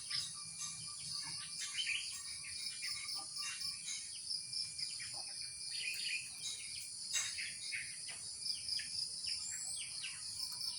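Many short bird chirps, several a second, over a steady high-pitched insect drone.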